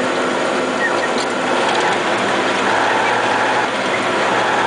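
MAZ snowplow truck under way: a steady, loud mix of engine and road noise with mechanical rattling.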